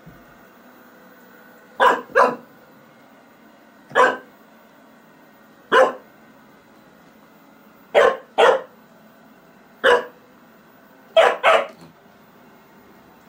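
Cockapoo puppy barking at a running robot vacuum cleaner: nine short barks, some in quick pairs, spread over about ten seconds. The robot vacuum's steady hum runs faintly beneath.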